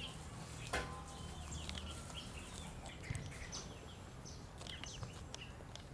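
Kitchen scissors snipping dried squid, a few light clicks with the sharpest about a second in, over birds chirping in the background.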